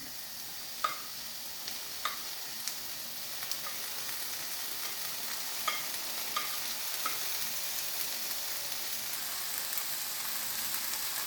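Eggs and garlic frying in oil in a pan: a steady sizzle that grows slowly louder, with a few light taps and scrapes of a utensil against the pan.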